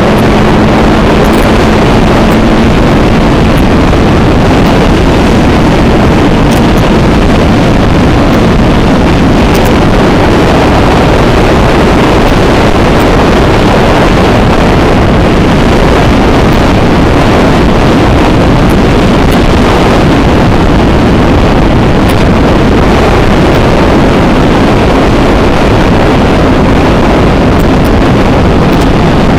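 Loud wind noise buffeting the camera microphone on a moving CFMoto 400NK motorcycle, with the bike's engine running underneath. A steady engine tone shows through the wind for the first few seconds.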